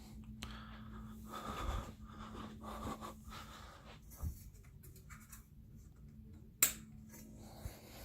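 42-inch Mayfair (Banvil) BF542-16-1L ceiling fan running, a steady low motor hum under a soft rush of air from the blades. A single sharp click sounds a little over six seconds in.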